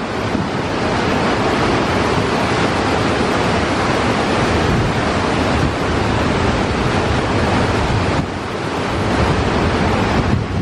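Steady loud rush of a waterfall, with wind buffeting the microphone; it eases briefly about eight seconds in.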